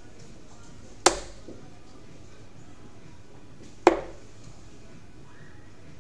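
Steel-tip darts striking a Winmau bristle dartboard, two sharp thuds about three seconds apart, about a second in and about four seconds in, each with a short ringing tail.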